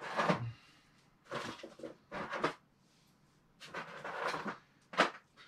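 Rummaging through a small storage box of parts: several short bursts of clattering and rattling, ending in a sharp click near the end.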